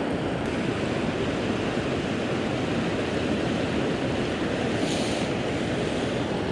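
Steady rush of river water running over rocks and riffles, with a short brighter hiss about five seconds in.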